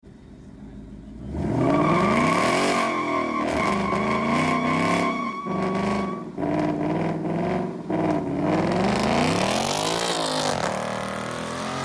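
Ford Mustang GT's 5.0-litre V8 revved hard over and over, its pitch climbing and dropping about five times as the car pulls away. A steady high whine sounds over the first few seconds.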